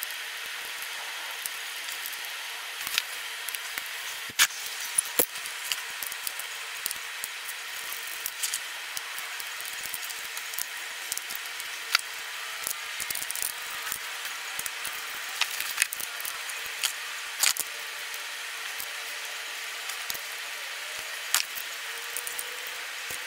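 Irregular metallic clicks and clinks of hand tools and bolts as an oil pan is bolted up to the engine, over a steady background hiss and faint hum.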